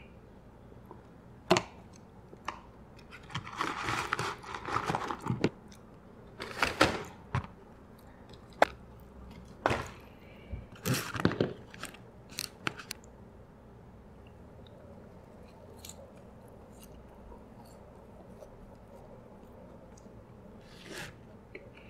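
Close-miked eating sounds: chewing and crunching with sharp mouth clicks and smacks, dense through the first half, then fading to faint, sparse clicks for the rest.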